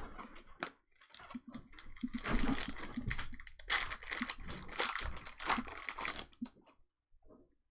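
Plastic wrapping crinkling and tearing as it is handled and opened, in a dense crackle for about five seconds that stops near the end.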